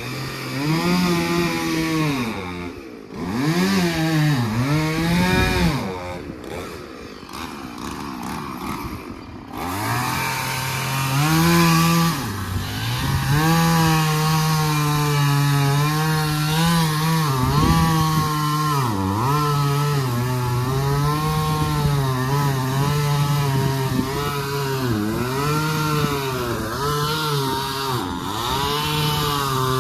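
Gas chainsaw cutting wood, its engine revving up and dropping back in short bursts at first, then held at high revs through a long cut from about ten seconds in, the pitch sagging each time the chain bites into the wood.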